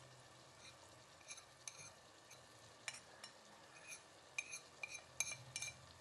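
A steel spoon scraping and tapping ground spices off a plate into a pressure cooker: a string of faint, light clinks and scrapes over a low steady hiss.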